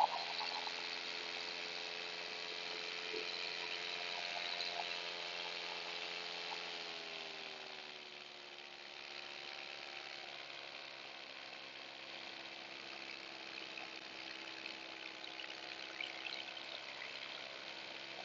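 Paramotor engine running in flight with a steady drone over a hiss. About seven seconds in it eases back: its pitch drops a little and it gets somewhat quieter, then holds steady.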